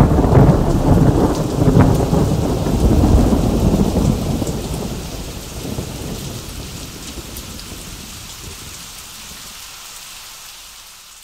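Recorded thunderstorm sound effect: steady rain with rumbling thunder, used as the dance's closing soundtrack and fading out slowly over the last several seconds.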